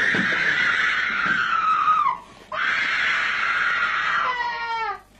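A young woman screaming: two long, high screams, each trailing down in pitch at its end, then a shorter wail that falls away near the end. This is the violent reaction she shows while held down during an exorcism session.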